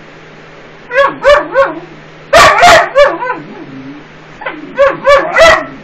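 Small dog barking in short, high barks: three quick barks about a second in, a louder run of barks a moment later trailing off into lower whines, then three more barks near the end.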